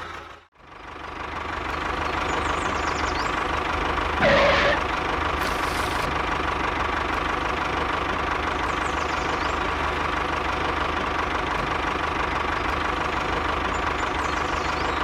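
A small engine running steadily, fading up just after a brief cut about half a second in, with a short louder sound that bends in pitch about four seconds in.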